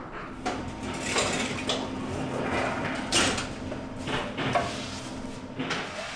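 Work clatter in a bakery: irregular knocks, clinks and scrapes of trays, boards and utensils being handled, over a steady low hum.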